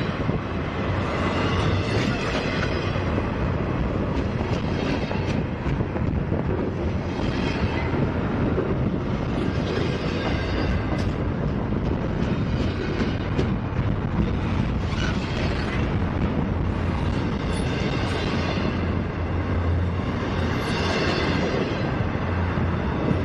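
A freight train rolling past steadily. A brighter burst of wheel clatter repeats every two to three seconds as the cars go by.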